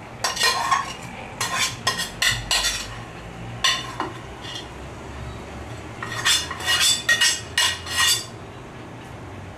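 Metal spatula scraping and knocking against a metal frying pan as fried potato cubes are pushed out of it into a glass serving bowl. It comes in several short runs of scrapes and clinks, with a pause in the middle.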